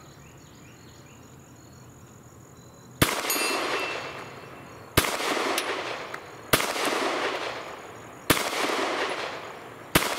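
Five 9mm pistol shots from an HK VP9, slow aimed fire spaced about one and a half to two seconds apart, the first about three seconds in; each crack trails a long echo across the range. Crickets chirp faintly before the first shot.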